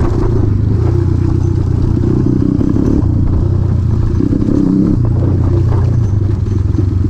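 A 1991 Honda XR200R's air-cooled single-cylinder four-stroke engine running while being ridden. The engine note falls off briefly about two-thirds of the way in, then picks back up.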